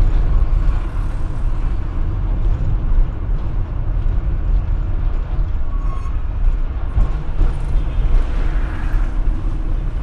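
Fiat Fiorino delivery van driving slowly in city traffic, heard from inside the cab: a steady low engine and road rumble.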